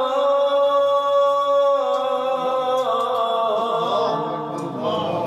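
A man reciting the Qur'an in the melodic, chanted tilawat style. He holds one long note for about two seconds, then steps down in pitch and goes on in a lower, wavering line.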